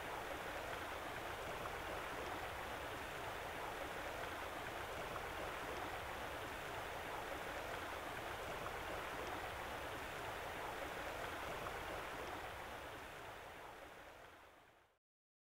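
Steady rushing of a flowing stream, fading out over the last few seconds to silence.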